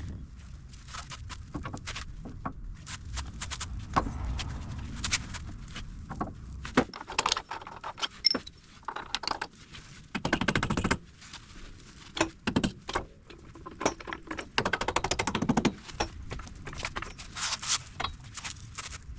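Metal tools and suspension hardware clinking, knocking and scraping as front suspension parts are worked on by hand. About halfway through, and again a few seconds later, comes a run of rapid, evenly spaced clicking lasting about a second.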